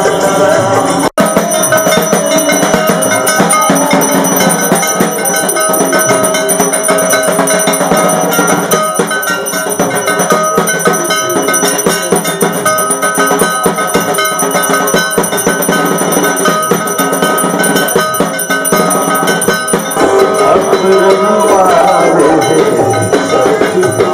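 A puja hand bell rung continuously during the arati worship before the Durga idol, ringing over music. The sound cuts out briefly about a second in.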